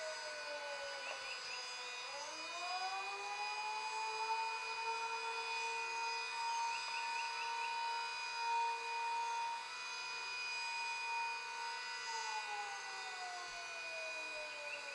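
Outdoor warning siren sounding a wail: its pitch sinks low in the first couple of seconds, climbs slowly back to a high note that holds for about eight seconds, then falls away again near the end. A steady lower siren tone sounds beneath it throughout.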